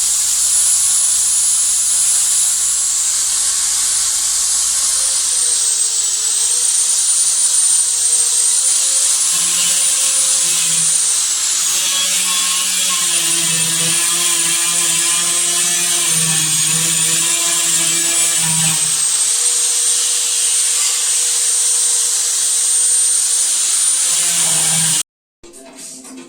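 A handheld power tool running at high speed on car bodywork, its high whine dipping in pitch and recovering as it is pressed into the work. Near the end it cuts off abruptly and music starts.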